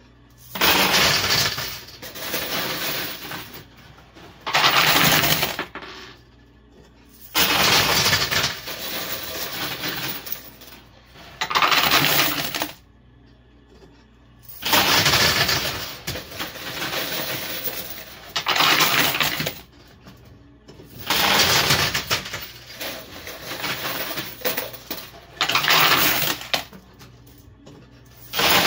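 Quarters clattering onto the metal playfield of a coin pusher machine in repeated bursts, one about every three to four seconds. Each burst starts sharply and then fades as the coins settle.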